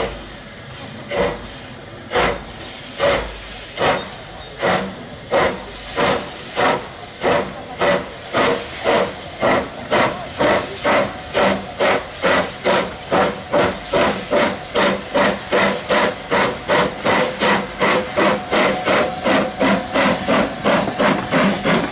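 Small steam tank locomotive pulling away from a standstill, its exhaust beats chuffing slowly at first, about one a second, then quickening steadily to about three a second as the train gathers speed.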